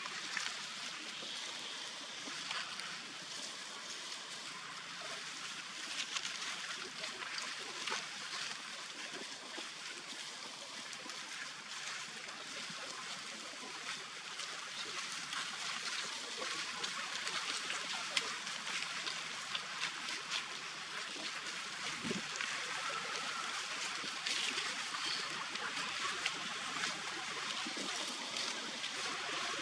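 Steady hiss of outdoor forest ambience with scattered light clicks and crackles throughout.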